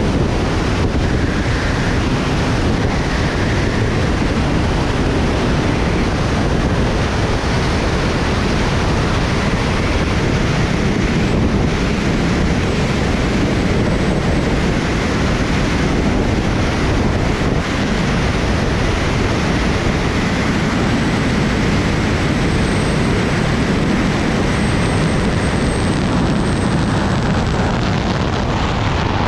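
Loud, steady rush of air over the camera microphone from a wingsuit in flight.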